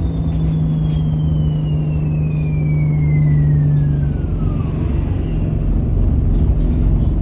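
ADL Enviro200 bus diesel engine running with its turbocharger whistle falling steadily in pitch over about five seconds as the turbo winds down. The engine's steady drone drops away about four seconds in.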